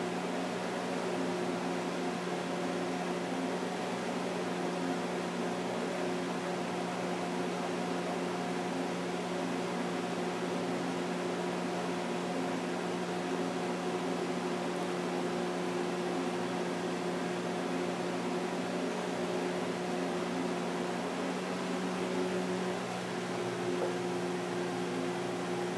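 Steady mechanical hum with a few constant low tones over an even hiss, unchanging throughout.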